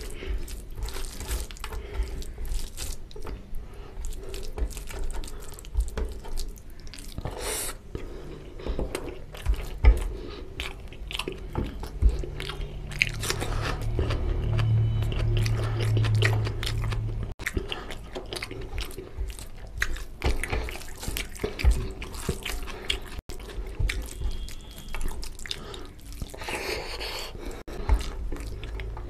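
Close-miked eating of mutton curry and rice by hand: wet chewing and lip-smacking mixed with the squish of fingers working rice and curry on a steel plate. A low steady hum runs for a few seconds around the middle.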